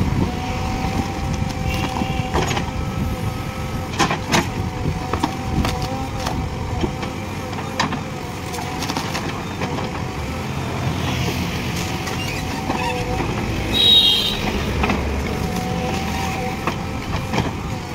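JCB 3DX backhoe loader's diesel engine running under load with a steady whine while the backhoe bucket digs at tree roots, with repeated sharp knocks and cracks of the bucket striking roots and soil. A brief loud high squeal about fourteen seconds in.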